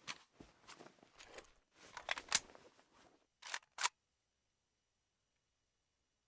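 Mechanical clatter and clicks of an AKS-74U rifle's action being handled, ending about three and a half seconds in with two sharp clacks about a third of a second apart, like a charging handle being racked.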